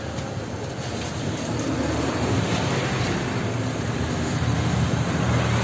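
Electric wall fan running, its airflow making a steady rushing noise with a low hum that grows a little louder after about two seconds.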